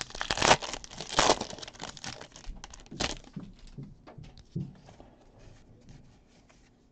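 Foil wrapper of a 2020 Topps Series 1 baseball card pack crinkling and tearing as it is opened, loudest over the first three seconds. After that come softer rustles and light clicks of the cards being handled, dying away near the end.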